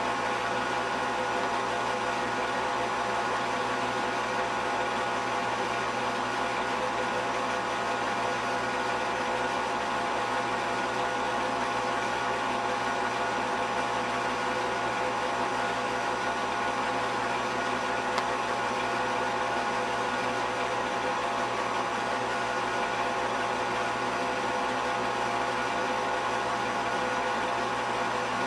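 Steady mechanical whirring hum of a film projector running, with several fixed tones over a hiss and no change in level.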